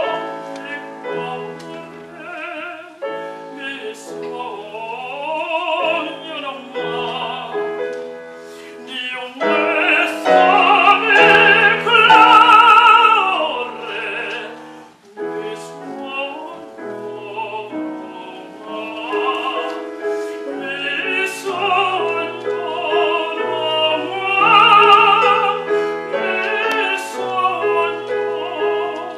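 Operatic bel canto singing with piano accompaniment: a trained voice with wide vibrato over sustained piano chords, swelling to loud held high notes twice, about ten seconds in and again near twenty-five seconds.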